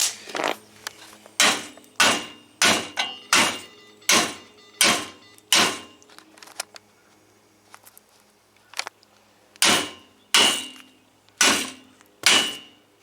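Hammer blows on a fresh stick weld made with car batteries, striking the steel to test whether the weld holds: a run of about seven sharp metallic strikes, a pause of a few seconds, then four more.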